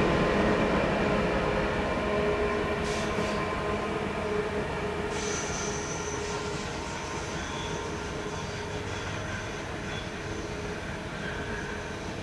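A train running through a tight curve, its wheels squealing against the rails in several steady tones while the rumble fades as it moves away. A higher, thinner squeal joins about five seconds in.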